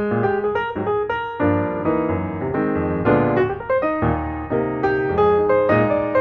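Background music: piano playing a stream of notes and chords.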